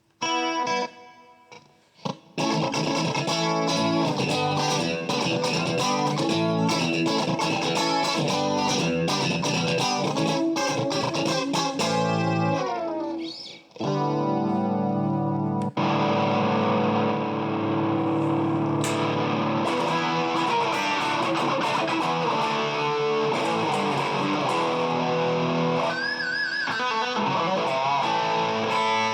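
Electric guitar played through effects pedals with distortion: a brief lull, then riffs and held chords, with bent, wavering notes near the end.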